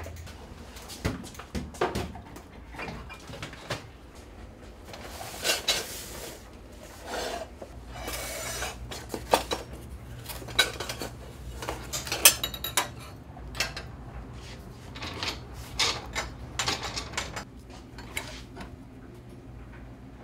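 Workshop handling sounds: scattered clinks and knocks of 4130 chromoly bicycle tubes being set down on a metal-topped bench, mixed with scraping and rustling as a long cardboard box is handled.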